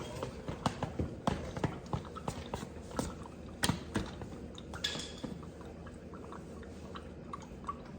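Scattered light clicks and knocks of hand tools and parts being handled while a Yamaha Banshee ATV is taken apart, about a dozen sharp taps over the first five seconds, then quieter.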